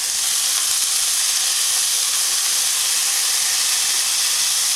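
Okra and spices frying in a hot pan, giving off a steady hiss of sizzling and steam as lemon juice hits the hot oil.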